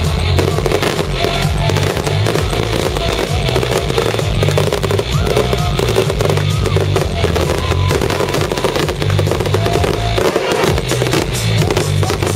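Loud electronic dance music from a festival sound system with a heavy bass beat, and fireworks going off repeatedly over it.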